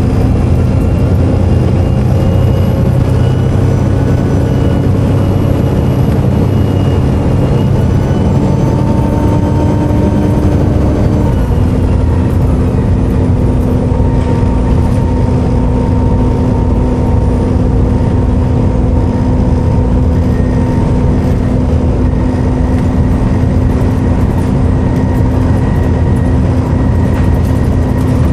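Volvo B7TL double-decker bus's six-cylinder diesel engine under way, with a steady low rumble and a high turbo whine. The whine climbs gradually, then drops about eleven seconds in as the bus eases off, and carries on steadily after that.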